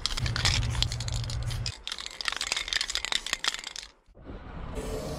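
Aerosol spray-paint can being shaken hard, its mixing ball rattling rapidly inside. The rattling stops about four seconds in, and near the end a steady hiss of the can spraying paint begins.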